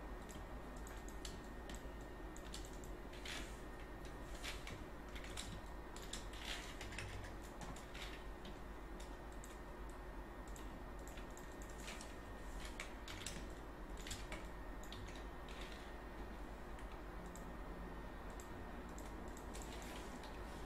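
Faint, irregular clicks of a computer keyboard and mouse, over a steady low hiss and hum.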